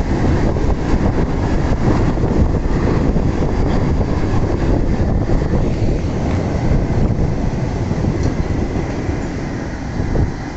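Freight train wagons rolling past close below, a loud steady rumble with wheel clatter over the rails, easing off gradually in the second half as the train draws away.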